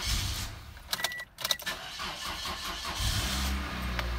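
A 2007 Toyota Corolla's 1ZZ-FE four-cylinder engine being started. It catches about three seconds in, swells briefly, then settles into a steady idle.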